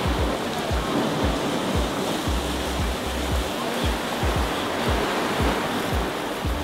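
Ocean surf washing on the rocky shore, with background music carrying low bass notes and a thumping beat.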